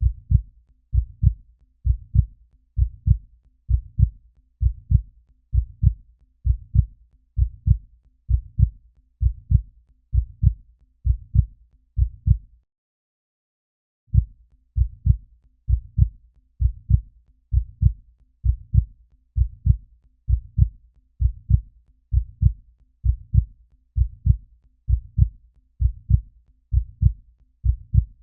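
Human heartbeat: a steady rhythm of low, dull double thumps (lub-dub). It stops for about a second and a half near the middle, then resumes.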